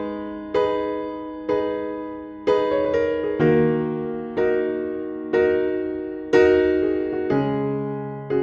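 Background music: a gentle electric piano plays slow chords, struck about once a second, each fading before the next.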